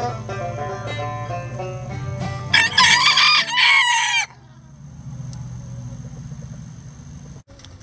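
Banjo music for the first couple of seconds, then a rooster crows once, loud, for about a second and a half; after it, only a low steady background.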